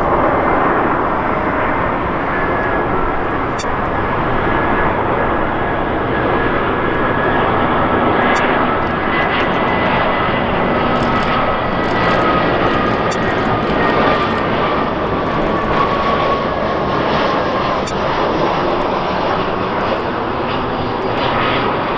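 Jet engines of an Airbus A320-family airliner on final approach with gear down: steady jet noise, with a whine that falls slowly in pitch as the aircraft passes.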